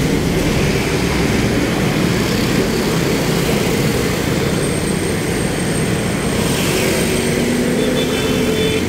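Steady, loud street traffic: vehicle engines running over a constant rumble of road noise.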